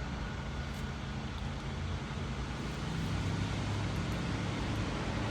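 Hurricane wind and rain outside the house: a steady rushing noise with a heavy low rumble, building a little about three seconds in.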